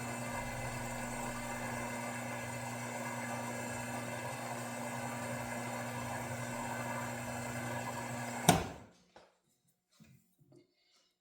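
Milling machine spindle motor running with a steady hum. It is switched off about eight and a half seconds in and winds down quickly, followed by a few faint clicks.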